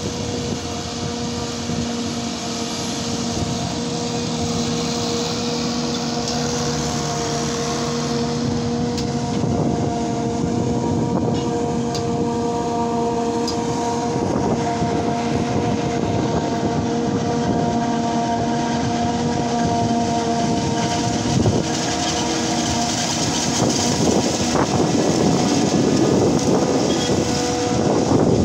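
Self-propelled forage harvester chopping standing maize into a tractor-drawn silage trailer: a steady, loud machine drone with a held whine, louder near the end as the harvester comes close.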